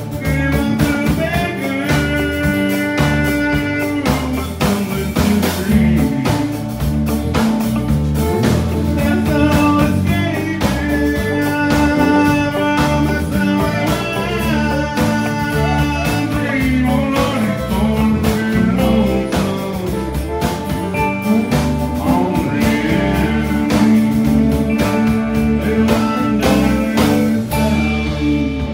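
Live country band playing an instrumental break, a fiddle carrying sustained, gliding melody lines over strummed acoustic guitar, bass and a steady drum beat.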